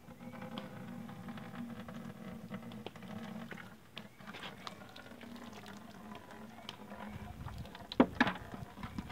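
Hot maple syrup simmering in the evaporator pan and trickling from the open drain valve into a cloth-filtered bucket, a light bubbling with scattered small ticks. A couple of sharp knocks about eight seconds in are the loudest sounds.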